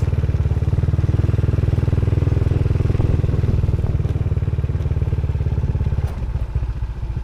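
Motorcycle engine running steadily as it is ridden, with a fast even pulsing of the exhaust; about six seconds in its sound becomes a little quieter and less even.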